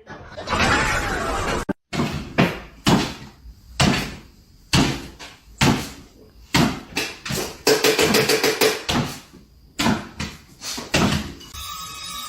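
A series of irregular knocks and thumps, one hard strike after another, with a quicker run of clattering knocks about eight seconds in.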